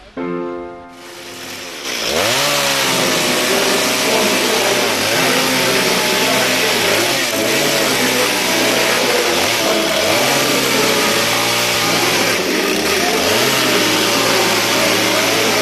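A choir's last chord fades in the first second. From about two seconds in, a chainsaw runs loudly while cutting old wooden boards, its engine pitch dropping under load and picking up again several times.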